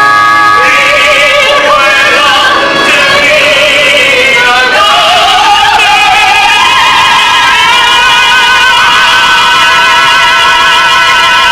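Operatic singing of an Italian-style aria over instrumental accompaniment. About five seconds in the voice climbs to a long high note held with vibrato.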